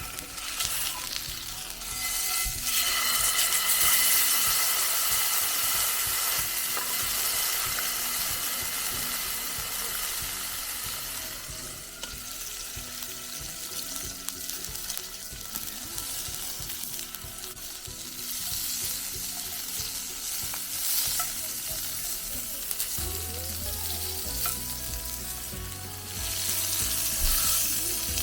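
Steak sizzling and frying in a hot pan, a steady crackling hiss that swells and eases a little. Light background music with low bass notes joins near the end.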